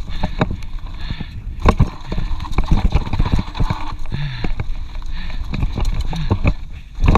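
Mountain bike jolting over a rough dirt trail: frequent irregular knocks and rattles from the bike over a low rumble.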